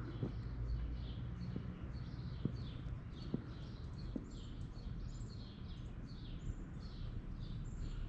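Small birds chirping over and over, short falling high notes several times a second, over a low steady rumble, with a few soft ticks in the first half.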